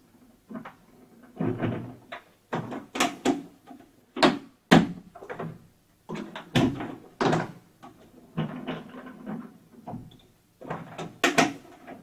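Irregular plastic clicks, knocks and clunks as a ZUBR shop vacuum's plastic motor head is handled, turned and seated on its tank.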